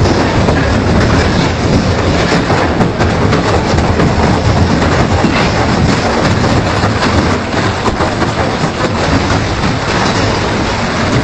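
Double-shaft industrial shredder chewing through metal: a loud, continuous grinding crunch with many sharp cracks over a low motor hum.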